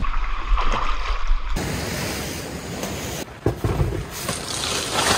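Steady rushing outdoor noise of wind and water, in short clips cut together, with wind buffeting the microphone in the first.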